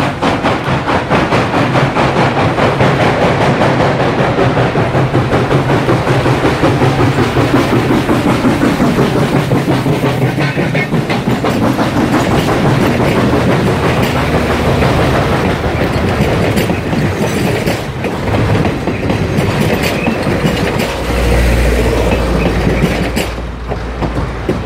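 Southern Railway 2-8-0 Consolidation steam locomotive #630 passing close by, its exhaust beating in a quick, steady rhythm, followed by its passenger coaches rolling past with wheels clicking over the rail joints. Near the end a low rumble sets in as the train moves away.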